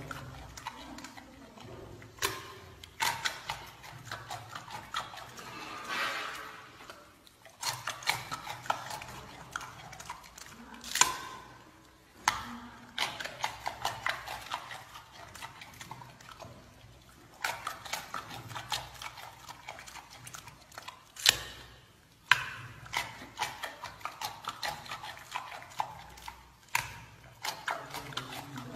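Giant panda crunching and chewing a raw carrot: runs of sharp, crisp crunches with short pauses between them, and a couple of louder cracks as it bites off pieces.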